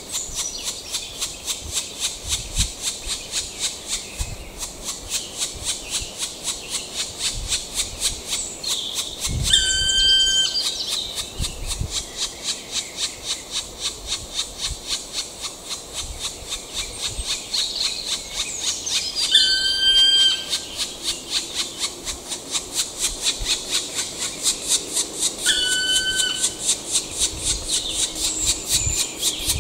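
Black woodpecker giving a loud, held whistled call three times. Under it runs a steady rhythmic chirring of about three pulses a second.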